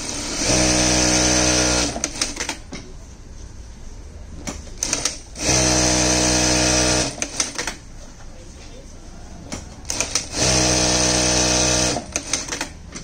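Bruce R2 direct-drive computerized industrial lockstitch sewing machine stitching denim in three short high-speed runs of about a second and a half each, at a steady pitch. Between the runs come quick clusters of sharp mechanical clicks.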